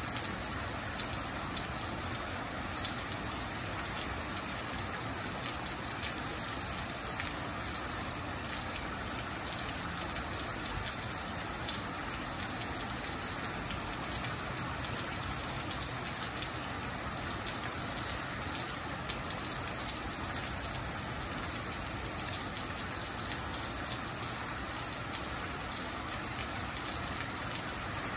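Steady rain falling on a wet porch and street, an even wash of noise with scattered louder drops.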